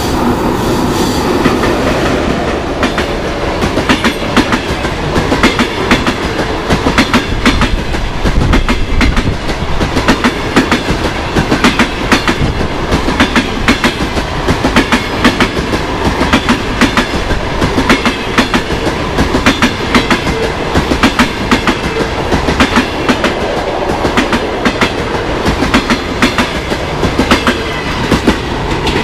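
Passenger train hauled by an EP1M electric locomotive passing close by at speed: the locomotive goes by first with a steadier rush of noise, then the coaches' wheels clatter over the rail joints in regular groups of sharp clicks as each bogie passes.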